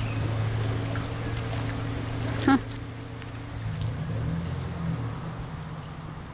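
A steady high-pitched insect buzz, like a cricket or cicada chorus, that stops about four and a half seconds in, over a low steady hum. There is a brief sound about two and a half seconds in, and everything fades down toward the end.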